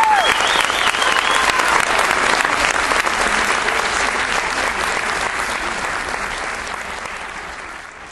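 Audience applauding, with a few high cheers in the first couple of seconds; the applause fades out toward the end.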